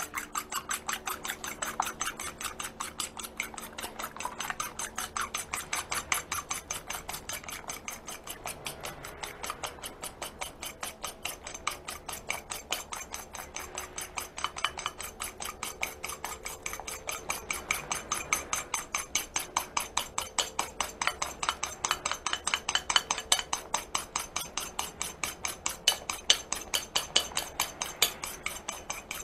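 Egg whites being beaten by hand with a metal fork in a ceramic bowl: a fast, steady clatter of the fork against the bowl, about six strokes a second, getting louder near the end as the whites whip up stiff.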